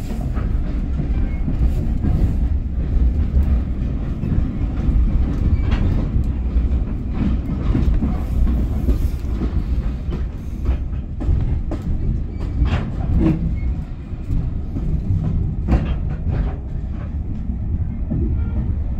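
Heritage railway passenger coach rolling along the track, heard from inside the carriage: a steady low rumble with scattered clicks and knocks from the wheels and rails.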